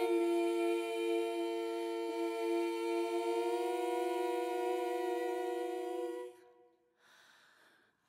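Voices holding one long, steady two-note chord in close harmony with a slight waver. The chord fades out about six seconds in.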